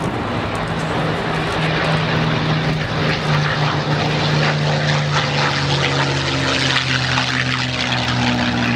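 P-51D Mustang's Merlin V-12 engine at take-off power, a steady deep propeller drone that grows somewhat louder.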